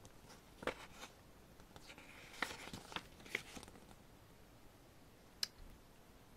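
Faint handling of a paper photo book: a few light clicks and a soft paper rustle as a page is turned.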